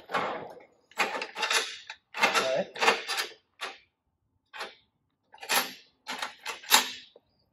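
Metal hand tools, sockets and wrenches, clinking and clattering as they are set down and sorted through in a tool tray: about ten short, irregular rattles with pauses between them.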